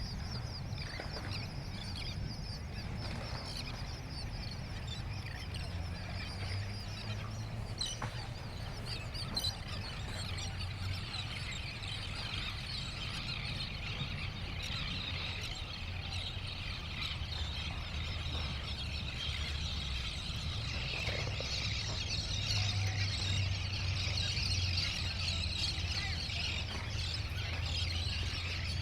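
A dense chorus of birds calling, many high chirps overlapping without pause, growing busier and louder in the second half, over a steady low rumble.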